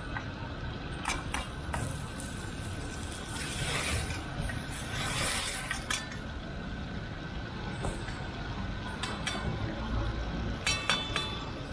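Long metal ladle clinking and scraping against steel woks as it stirs frying tomatoes and meat over a charcoal fire. There are several sharp ringing clinks, with a quick cluster near the end, and a spell of sizzling hiss in the middle.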